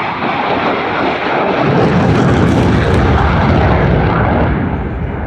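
Eurofighter Typhoon's twin EJ200 turbofans heard passing overhead as a loud, dense jet rumble. The deep rumble swells strongly about two seconds in and eases again near the end.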